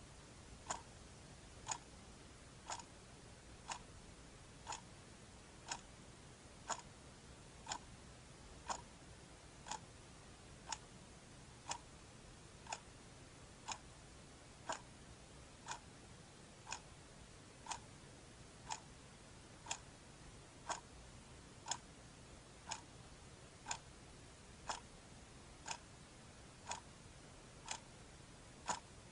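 Clock ticking steadily, one crisp tick about every second, over a faint steady hiss.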